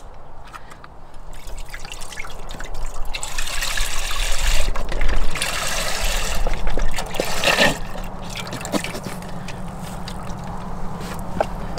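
Chicken stock poured from a carton into a metal pot: a steady splashing trickle that builds up after a couple of seconds and eases off near the end.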